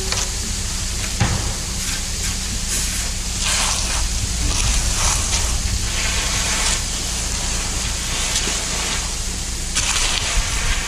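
A steady low engine hum runs throughout, with intermittent hissing scrapes of hand trowels being worked over wet concrete, coming and going in short spells.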